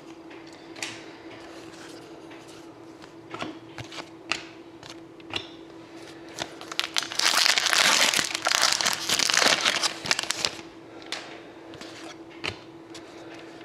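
Trading-card packaging crinkling as it is handled, with scattered light rustles and clicks and a longer, louder stretch of crinkling about seven to ten seconds in. A faint steady hum runs underneath.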